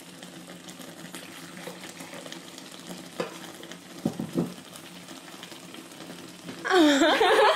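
Bundaberg pink grapefruit soda fizzing as it is poured into a glass, a steady quiet hiss of carbonation, with a few light glass knocks about three to four seconds in. Near the end a woman starts laughing and talking over it.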